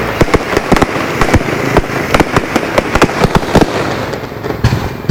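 Aerial fireworks going off in a rapid barrage, many sharp bangs and pops overlapping with crackling. The volley thins out about four seconds in, and one loud bang comes at the very end.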